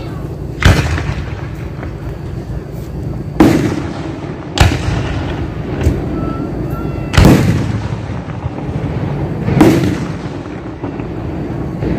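Aerial firework shells bursting overhead: five loud booms a second or a few seconds apart and a softer one about six seconds in, each with an echoing tail.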